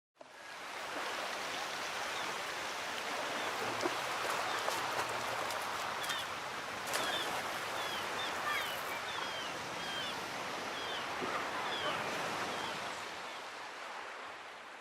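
Steady rush of running water, like a stream, with a small bird chirping in short calls through the middle; the sound fades out at the end.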